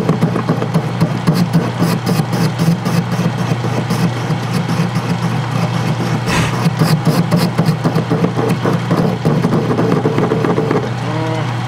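Metal lathe turning a cast iron casting with a high-speed steel cutting bit: a steady motor hum under a dense, rapid crackle of the cut, with one louder scrape about halfway through and the crackle easing near the end. The bit is being dulled, which the machinist puts down to the hard outer skin of the cast iron.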